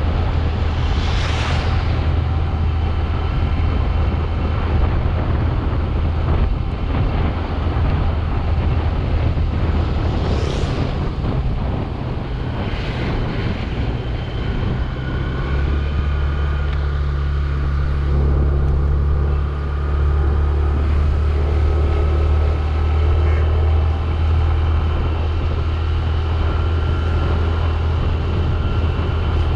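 Motorcycle riding along a wet road: steady engine rumble under wind rush and tyre hiss, with three brief swishes, once near the start and twice about a third of the way through.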